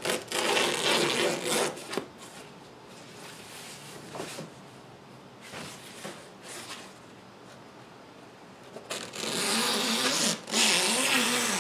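A thin synthetic camouflage kayak cover being cut with scissors and ripped open by hand. A stretch of ripping, rasping noise lasts about two seconds at the start, then comes quieter rustling and small snips, then another longer rip about nine seconds in.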